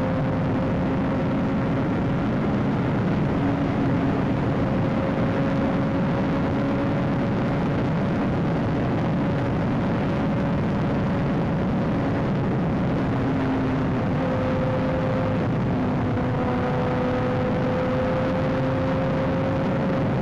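Honda CBR600 motorcycle's inline-four engine running at a steady cruising speed, its note holding nearly level with slight drifts in pitch, under a constant rush of wind noise from riding at speed.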